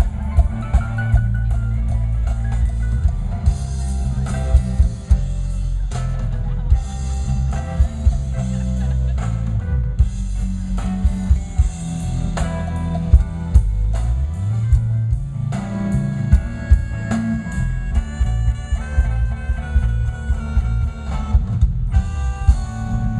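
Live band playing amplified music: guitar over a heavy bass and a drum kit, with frequent sharp hits.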